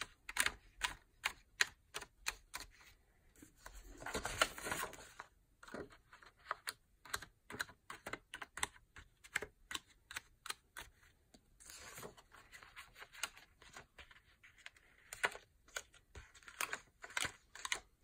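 Planner pages being pressed onto and worked along the metal discs of a discbound planner: a dense run of small snapping clicks, with paper sliding and rustling about four seconds in and again around twelve seconds in.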